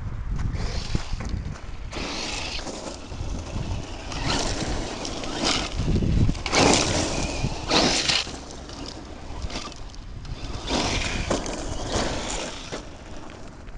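Homemade RC monster truck with a 6S brushless electric motor driving in repeated bursts of hard acceleration, each a loud hissy surge lasting about a second. A low wind rumble on the microphone runs underneath.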